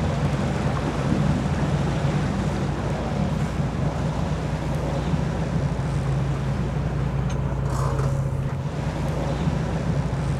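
Sportfishing boat engine running with a steady low drone under a broad, even hiss.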